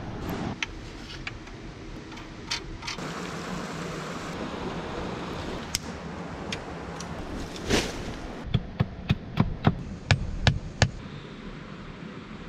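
Hatchet pounding a green wooden stake into stony ground: about eight sharp knocks in quick succession, roughly three a second, after a single louder blow.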